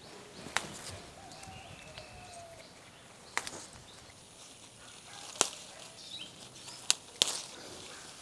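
Red hibiscus flowers being plucked from the bush by hand, their stalks snapping off in about five sharp snaps, two of them close together near the end. Faint bird calls sound behind the snaps.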